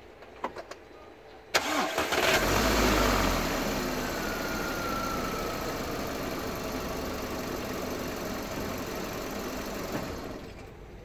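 VW 1.6 FSI (BLF) four-cylinder petrol engine cranked on the starter and catching about a second and a half in. It flares up briefly, settles to a steady idle, and dies away when switched off near the end.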